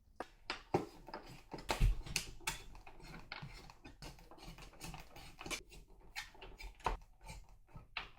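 Irregular clicking, tapping and knocking of computer parts being handled, with one louder knock about two seconds in.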